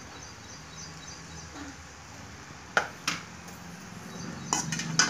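Perforated steel ladle clicking twice against an aluminium pan about three seconds in, then scraping and tapping as it starts stirring flattened rice near the end, over a low steady hum.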